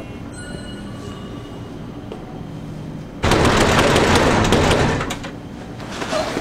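A low hum, then about three seconds in a sudden loud rattling clatter of metal-framed double doors being shaken and banged, lasting nearly two seconds before fading.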